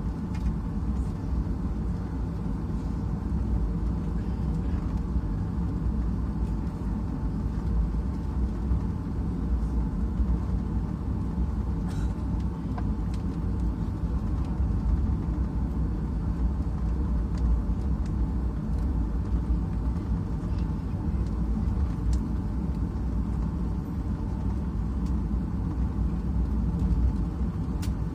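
Steady low rumble in the cabin of a Boeing 757-232 taxiing after landing, its Pratt & Whitney PW2000-series engines at idle, with a few faint clicks.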